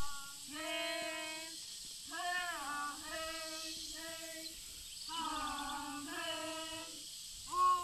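Children singing a traditional Naso dance chant in a series of long held notes, each about a second or more, some bending in pitch at their start.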